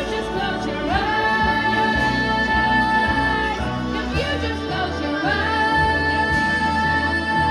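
A singer performing over backing music, swooping up into a long held high note twice, each held for a couple of seconds.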